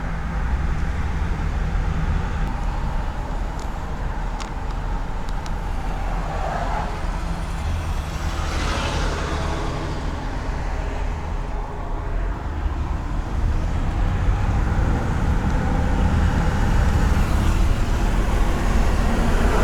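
Ford E-350 van with its 5.4 Triton V8 driving at cruising speed, heard from inside the cab: a steady low engine drone with tyre and road noise, growing a little louder over the last few seconds.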